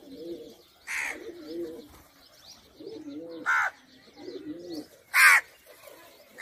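Pigeons cooing in repeated low phrases, with a crow cawing three times, each caw louder than the last, the loudest near the end.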